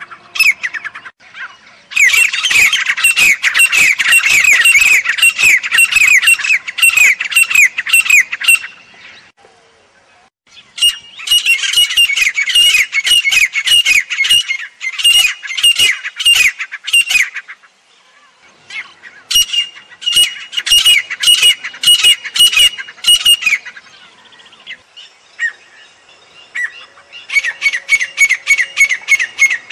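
Grey francolins calling in four long bouts of fast, loud, closely repeated notes, with short pauses between bouts.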